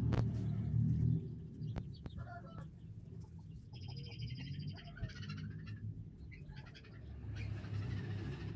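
Birds calling in the background: a short cluster of calls about two seconds in, then a higher, rapidly repeated call around four to five seconds in. A low rumble underneath is loudest in the first second.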